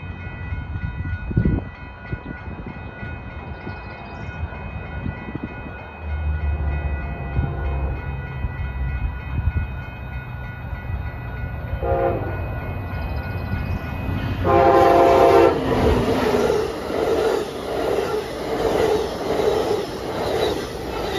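Amtrak Pacific Surfliner train led by a Siemens SC-44 Charger locomotive approaching with a rising rumble. It sounds its horn in a short blast about twelve seconds in and a longer, louder blast a couple of seconds later, then passes close by at speed, its bilevel cars' wheels clattering in a steady rhythm.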